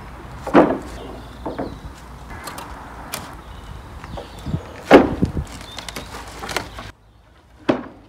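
Freshly sawn English oak slabs being laid down on a stack: a series of sharp wooden knocks and thuds, about five, the loudest about five seconds in.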